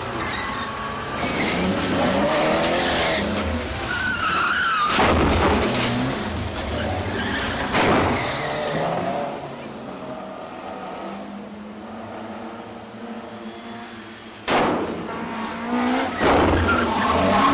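Cars driven hard in a chase: engines revving and tyres squealing and skidding through turns. Quieter for a few seconds in the middle, then a sudden loud burst of engine and tyre noise about fourteen seconds in.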